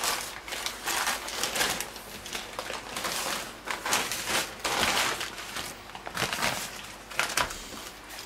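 Newspaper wrapping crinkling and rustling as it is unfolded by hand, in irregular crackly bouts.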